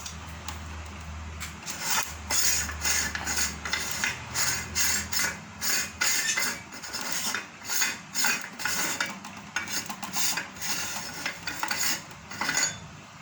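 Metal parts of a meat-grinder-type pellet machine clinking and knocking together in irregular bursts as they are handled and taken apart.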